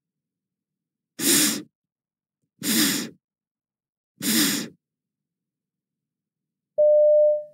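A voice sounding the voiceless consonant /f/ on its own three times, each a sustained "fff" hiss of about half a second with pauses between, as a pronunciation model. Near the end, a short steady beep.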